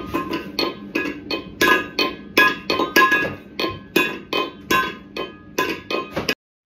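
A cat pawing at a metal food bowl, banging it down again and again: a quick run of ringing clanks, about three a second, that cuts off suddenly near the end.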